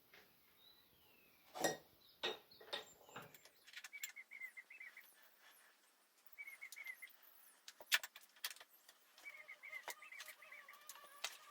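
Metal hydraulic hose fittings being handled and threaded: a few knocks, then scattered clicks and intermittent squeaking and creaking as a reusable fitting is screwed onto the high-pressure hose.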